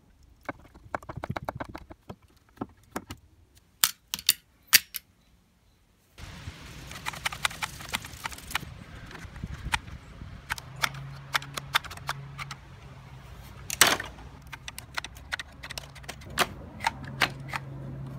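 Nails being pulled from the wooden rungs of an old step stool with end-cutting pliers, with scattered clicks and a few sharp snaps. Then a one-handed bar clamp set between the stool's legs clicks as its trigger is squeezed again and again to force the nailed joints apart, with one loud sharp crack about three-quarters of the way through.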